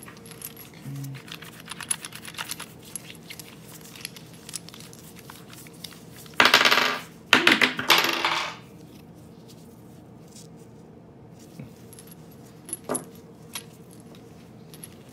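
Metal cartridges clinking and jingling against each other as they are rubbed dry in a microfiber towel after a vinegar-and-salt cleaning. It starts as light scattered clicks and turns into a loud clattering rattle from about six to nearly nine seconds in, followed by a few faint taps.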